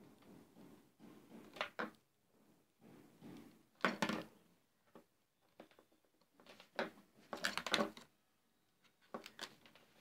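Faint scattered clicks and light knocks of a RAM module being worked and pressed down into its memory slot in a Lenovo G500 laptop until it seats. The louder clicks come about four seconds in and again near eight seconds.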